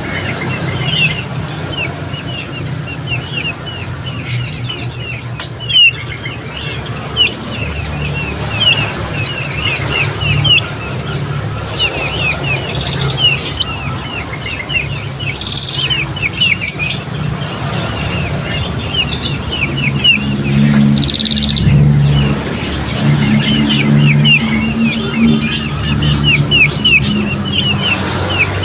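Small birds chirping continuously in a rapid run of short, quick chirps, several a second, with a few higher notes now and then, over a steady low hum.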